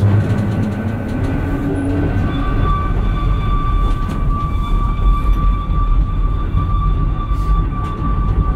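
Ikawa Line passenger train running, coaches pushed by a diesel locomotive, heard from the front cab: a steady low rumble of wheels on rail. A tone rises over the first two seconds, then a steady high whine holds from about two seconds in.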